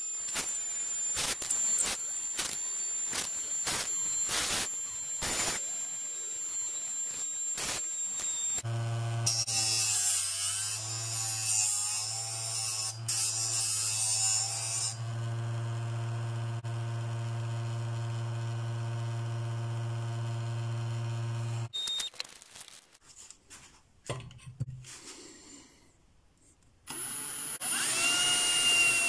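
A series of handling clicks, then the electric motor of a Parkside tool sharpening station starts and runs with a steady hum for about thirteen seconds, with a grinding hiss over its first few seconds, before it switches off. Near the end a drill whines as its bit cuts into a metal bar.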